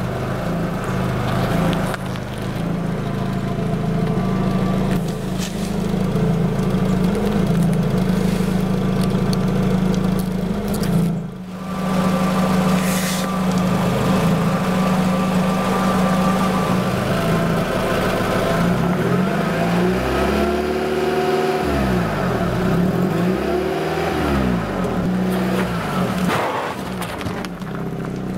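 A car engine idling steadily, its pitch swinging down and up several times a little past the middle.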